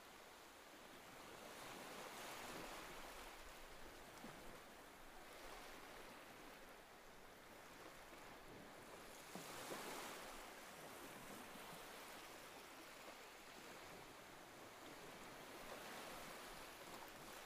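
Small waves breaking and washing up on a sandy beach, faint, swelling and falling back every several seconds, loudest about ten seconds in.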